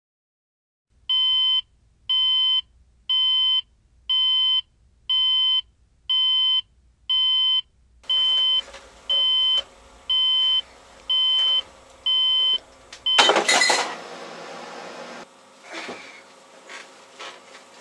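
Digital alarm clock beeping, one high beep about every second, a dozen times, until it stops with a loud thump and rustling.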